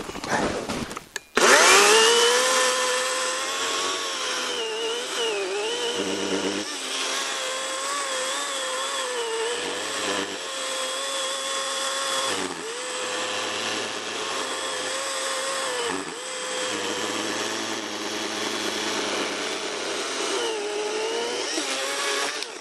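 Greenworks battery chainsaw cutting through the end of a log: a steady motor whine that starts about a second and a half in, dips in pitch several times as the chain bites into the wood, and stops near the end. The chain chatters on the bar, a sign that the winter chain oil has gone too thin.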